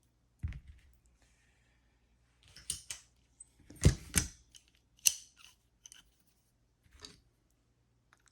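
Metal hand tools and a lock being handled on a workbench: scattered clicks and knocks, with a dull thump about half a second in and the loudest pair of sharp knocks about four seconds in.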